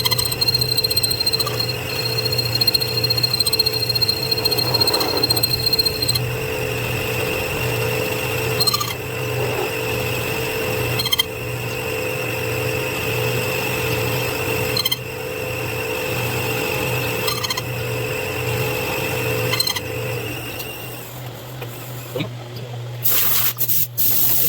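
Metalworking machine tool running with a steady hum and whine, a faint tick every two to three seconds; the whine stops about 21 seconds in, followed by short hissing bursts near the end.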